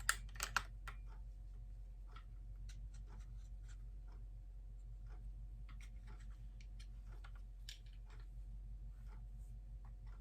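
Handling of a plastic concert glowstick (penlight): two sharp clicks right at the start, then scattered light clicks and taps, over a steady low electrical hum.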